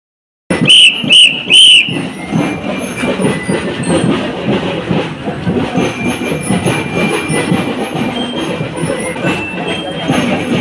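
A shrill whistle blown in three short blasts about half a second apart, a marching signal for the parade. A steady, jumbled din of the moving parade follows.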